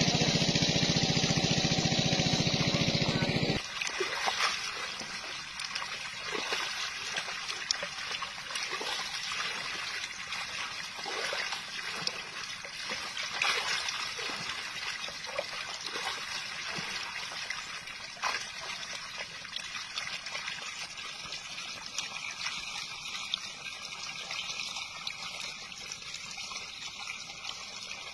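An engine runs steadily and stops abruptly about three and a half seconds in. Then water trickles, with many small splashes from small fish flicking at the surface of shallow water.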